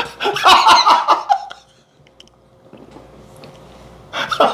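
A man laughing loudly in a choppy burst over the first second and a half, then another short laugh near the end.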